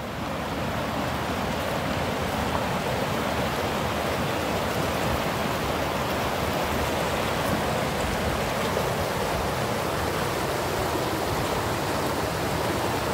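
The Baksan, a fast mountain river, running at full flow: a steady, even rush of water.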